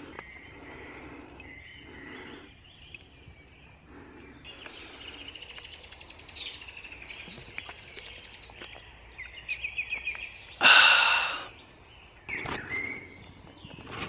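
Woodland birdsong: several small birds singing, with fast repeated trills and chirps. A brief, much louder sound breaks in about ten and a half seconds in.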